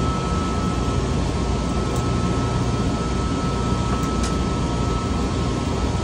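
Steady drone of running machinery with a low hum and a thin, steady high whine, and two faint ticks as the contactor's parts are handled.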